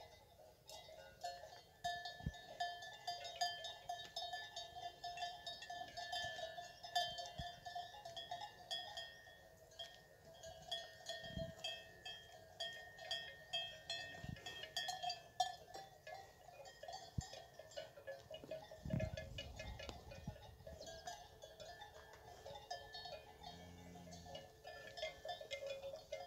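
Cattle bells on collared cattle clanking and ringing almost without a break as the herd moves, with a few soft low thumps.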